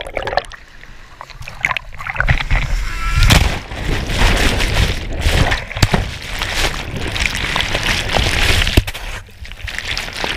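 Breaking waves churning and splashing around a camera in the surf, in irregular loud surges with sharp splashes.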